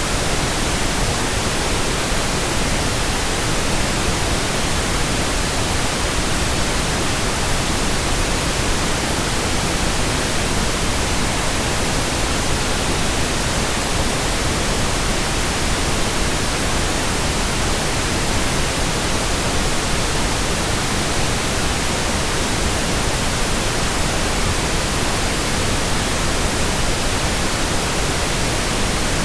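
Steady, unchanging white noise: an even hiss spread across all pitches, with no breaks or variation.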